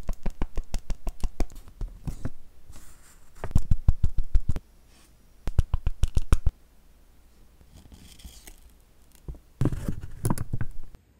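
Rubber stamp dabbed repeatedly on an ink pad, making quick runs of light tapping clicks, with a few louder knocks near the end.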